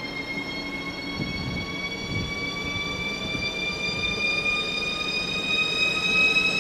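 Deutsche Bahn ICE 4 high-speed electric multiple unit accelerating away from a station. Its traction drive gives a whine that rises steadily in pitch, over the rumble of wheels on the rails, with a few low knocks from the running gear about one to three seconds in.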